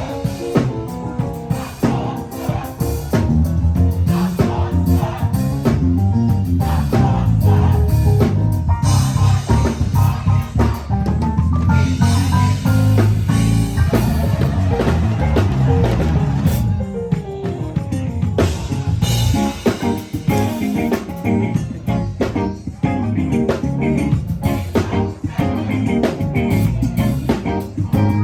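Live band playing a full groove at a sound check: drum kit with snare and rimshot hits over bass and guitar.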